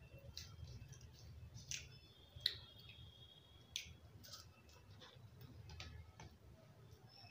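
Faint eating sounds: scattered sharp clicks and smacks of someone chewing kachori and jalebi taken from a plate by hand, the loudest about two and a half seconds in, over a low steady hum.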